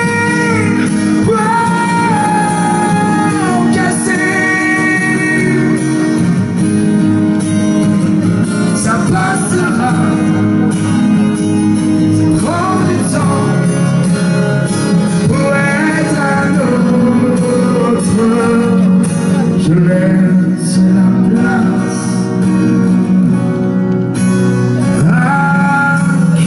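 A male singer singing a pop song live into a microphone over a band backing with guitar, holding long notes that slide between pitches.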